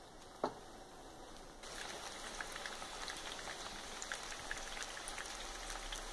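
Panko-breaded chicken fingers deep-frying in a pot of hot oil: a steady crackling sizzle full of small pops, louder from about a second and a half in. A short knock about half a second in.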